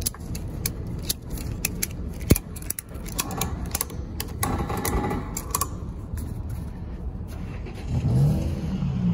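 Tie-down straps being ratcheted and buckled over a steel wire-filled farm gate in a pickup bed: an irregular run of metal clicks and rattles, with one sharp knock about two seconds in.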